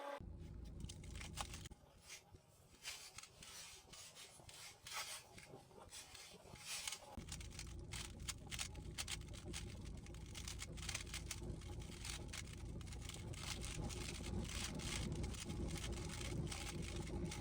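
Rubik's cube being handled and turned, a steady run of quick plastic clicks as its layers rotate. A low steady hum joins about seven seconds in.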